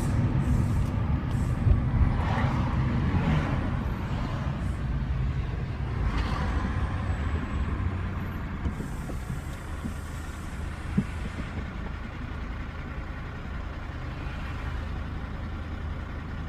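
Road vehicle engines running in traffic with a steady low hum. Short rushes of noise come about two and six seconds in, and a higher hiss comes near the middle.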